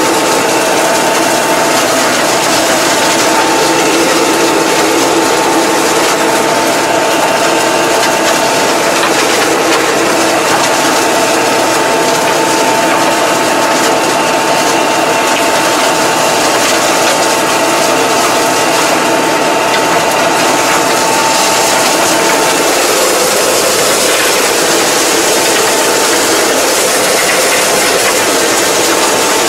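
Massey Ferguson 2220 tractor heard from inside the cab, engine running steadily under load while its rear mower cuts tall weeds, with a dense mechanical clatter and a steady high whine. The whine stops about three-quarters of the way through.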